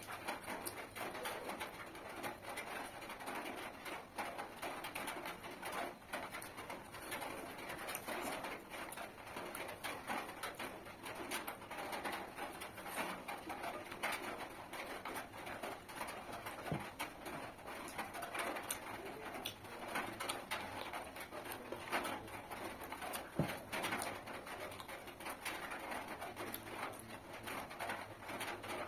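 Close-up eating sounds: fingers squishing and mixing rice and curry, then chewing and lip smacking, heard as a steady run of small wet clicks. A pigeon coos in the background.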